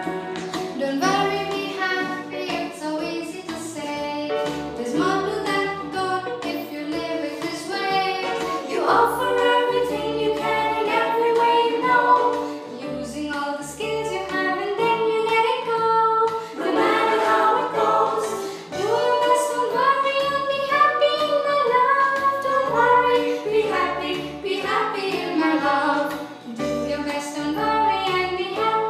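A woman singing a melodic song, her voice carried over instrumental backing with a steady low beat.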